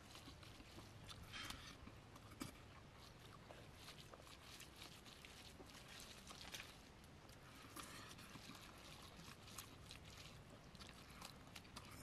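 Faint eating by hand: rice being squished and mixed with fish curry on a banana leaf, and chewing, heard as soft scattered clicks and crackles.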